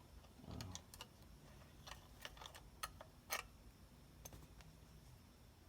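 A few faint, scattered clicks and taps of hand tools and bolts being handled while a steering wheel is fitted to its hub, over near silence.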